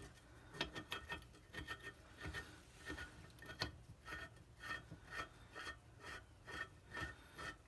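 Steel thread-repair insert being turned by hand tool into the spark plug hole of a Ford 5.4L cylinder head: faint metal-on-metal rasping and clicking strokes, about two a second.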